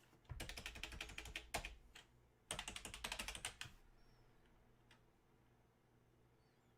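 Typing on a computer keyboard: two quick runs of key clicks, the first about a second and a half long, the second about a second.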